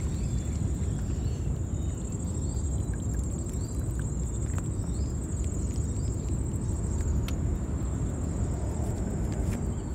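Outdoor ambience: a steady low rumble with a continuous high-pitched insect trill over it, and a few faint short chirps.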